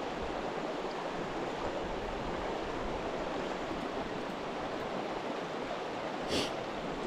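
Mountain stream water rushing steadily, with a short sharp hiss about six seconds in.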